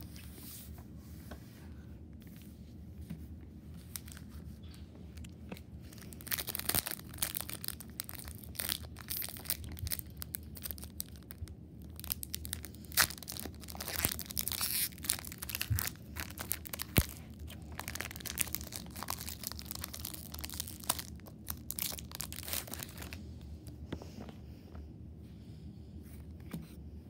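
Foil wrapper of a Pokémon Crown Zenith booster pack being torn open and crinkled, an irregular crackling with a few sharp snaps, starting about six seconds in and dying away a few seconds before the end.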